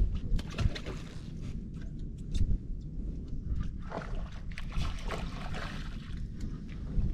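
Wind rumbling low and steady on the microphone over open water, with scattered small clicks and knocks throughout.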